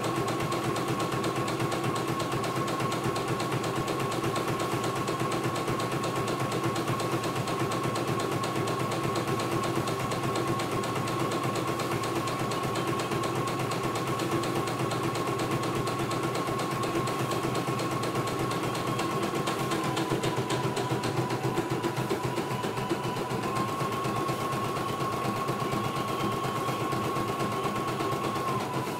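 CNY E900 computerized embroidery machine stitching a design: rapid, even needle strokes over the steady whine of its motor. The whine dips slightly in pitch about two-thirds of the way through and rises back a few seconds later.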